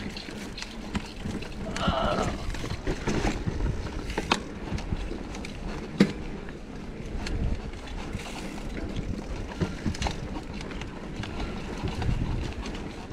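Mountain bike being ridden along a dirt singletrack trail: a steady rumble of tyres on the ground with scattered sharp knocks and rattles from the bike, the sharpest about six seconds in.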